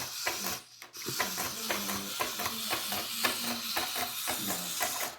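Hexbug remote-control robot spider walking: its small electric motor runs with a fast, irregular clicking of the plastic legs on the surface. The clicking stops briefly a little under a second in, then carries on.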